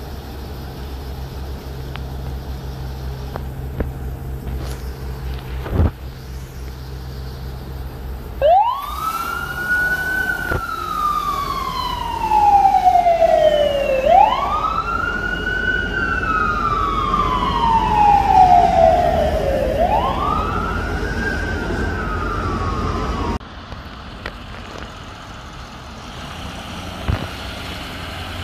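A Seattle Fire Department Medic One ambulance idles with a low, steady engine hum. About eight seconds in, its siren starts abruptly in a loud wail: three long cycles, each rising quickly and then falling slowly. The siren cuts off about 23 seconds in, leaving quieter traffic noise.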